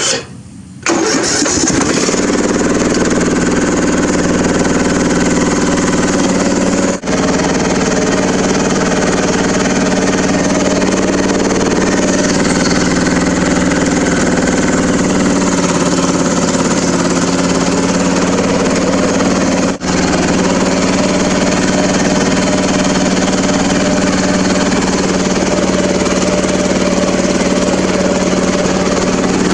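Riding lawn mower engine coming on about a second in, then running loud and steady under way, with water splashing off the tyres as it drives through shallow floodwater.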